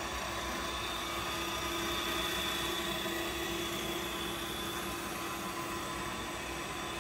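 Microweily TY-1860TS lathe running, its motor and spindle drive giving a steady, even hum with a faint whine, a little louder about two seconds in. There are no knocks, rattles or grinding in it.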